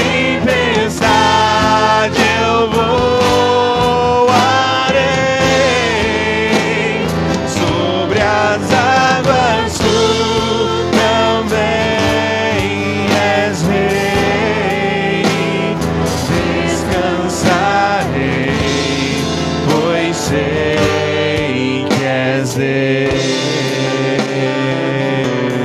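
Christian worship song: a singing voice over a full instrumental backing, playing steadily.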